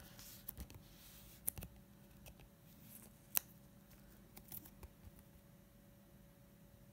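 Faint rustling and a few small, sharp clicks of a thin clear plastic card sleeve as a trading card is slid into it.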